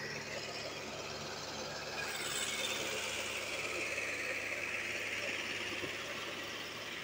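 Mahindra 585 DI tractor's four-cylinder diesel engine working hard under load, hauling a sand-laden trolley through soft sand. The noise grows louder and brighter about two seconds in.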